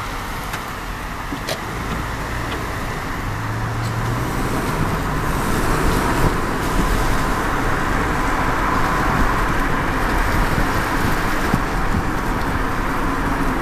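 Road noise of a moving car heard from inside it: a steady rumble of tyres and engine that grows gradually louder over the first half.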